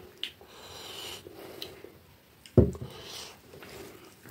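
Curry poured from a ceramic bowl over rice, with soft handling and rubbing sounds and a single loud thump about two and a half seconds in, then fingers mixing the rice and curry on the plate.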